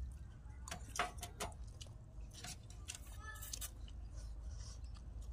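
Metal spoons clicking and clinking against a stainless steel serving tray as several people scoop food and eat, a few separate clicks about a second apart, over a low steady rumble.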